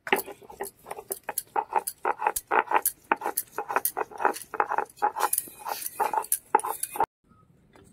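Stone roller scraping back and forth over a Bengali shil-nora grinding slab, crushing melon seeds into paste in quick rhythmic strokes, about three a second. The grinding stops abruptly about seven seconds in.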